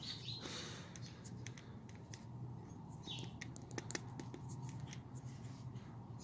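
Scattered light clicks and rustling of hands handling parts or the phone, with a faint bird chirp about three seconds in.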